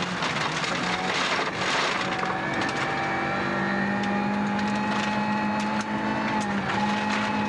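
Rally car engine running at a fairly steady pitch, with a brief dip about two-thirds of the way through, while loose gravel clatters and crackles under the car.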